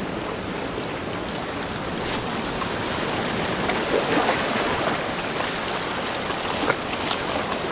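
Ocean surf washing along the shore: a steady rush of water, with a couple of faint clicks about two seconds in and again near the end.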